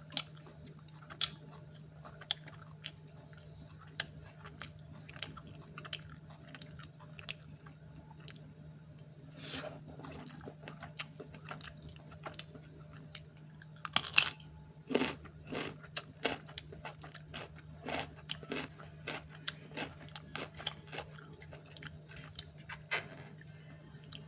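Close-miked eating: a person biting and chewing food with wet clicks and crunchy bites, sparse at first and coming thick and fast from a loud crunching bite a little past halfway. A steady low hum runs underneath.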